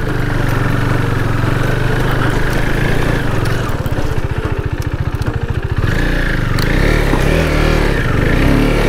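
KTM RC 390's single-cylinder engine running in low gear as the bike picks its way up a rocky, muddy dirt track, its revs rising and easing with the throttle.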